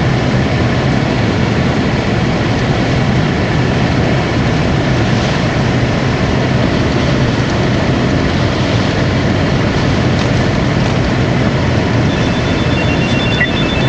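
Steady low rumble of a car's engine and road noise heard from inside the vehicle. About 12 seconds in, a faint run of short high-pitched electronic beeps begins.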